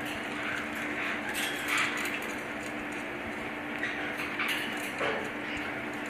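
Paper towel rustling and crinkling in short bursts as a caique tugs it down through the wire bars of its cage, over a steady low hum.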